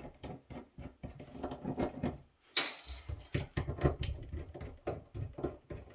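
Irregular clicks, taps and clatter of a screwdriver and small metal parts while the screws holding the display to the housing are taken out, with a brief louder scrape about two and a half seconds in.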